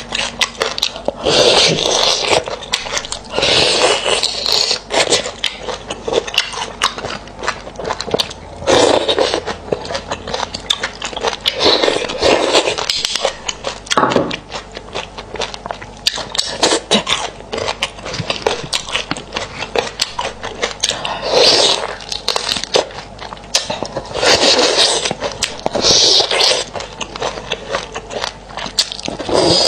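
Close-miked eating sounds: a metal knife scraping marrow out of a cooked beef bone, and the soft marrow eaten off the blade with wet mouth sounds and chewing. The bursts come every second or two, full of small clicks.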